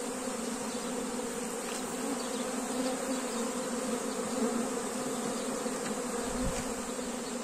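Swarm-level buzzing of a honeybee colony with its hive opened for frame work: many Carniolan honeybees in flight making a dense, steady hum.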